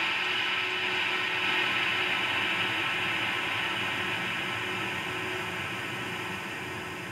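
A steady hiss with a faint, even hum under it, slowly fading.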